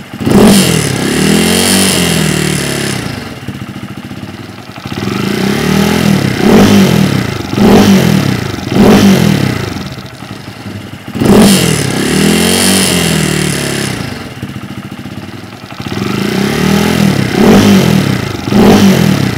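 Honda Monkey's single-cylinder engine fitted with a 145cc big bore kit, revved in two recordings: each is one longer rev followed by four quick blips of the throttle, the second recording starting about 11 seconds in. One recording is the Kitaco 145 kit, whose top end has a metallic rattle; the other is the Takegawa 145 kit, with that rattle gone.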